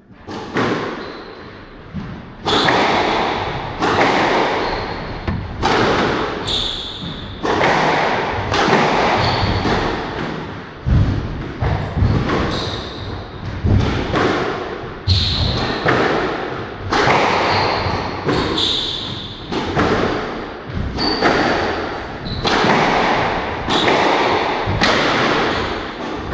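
Squash ball struck by rackets and hitting the court walls in a long rally, sharp hits about every second, each echoing in the enclosed court.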